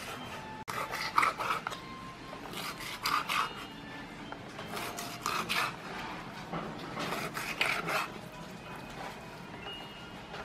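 Serrated knife sawing through raw pork onto a wooden chopping board: rasping cutting strokes in four bursts, about one every two seconds.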